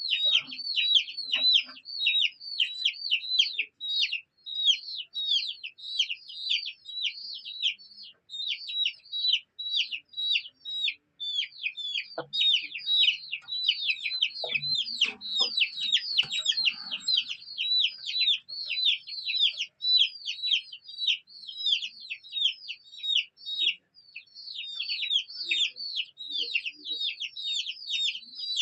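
Domestic chicks peeping continuously: a dense stream of high, downward-sliding peeps, several a second, from more than one bird. A few short low sounds come in about halfway through.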